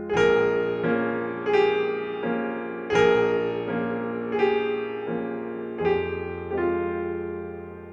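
Background piano music: a slow line of notes struck about every 0.7 seconds, each one fading, over a sustained low bass.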